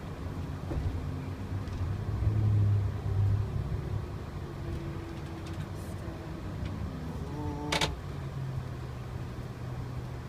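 Bus engine running and road noise heard from inside the bus as it drives along, a steady low hum that swells for a second or so about two seconds in. About eight seconds in there is one short, sharp sound.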